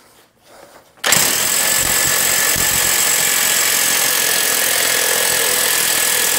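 Impact wrench hammering steadily on a tight reverse-threaded nut, starting about a second in.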